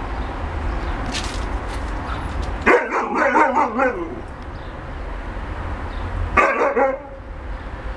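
An Alaskan Malamute giving two short bouts of warning barks at a young Siberian Husky provoking it: the first a little over a second long, the second shorter, about three seconds later.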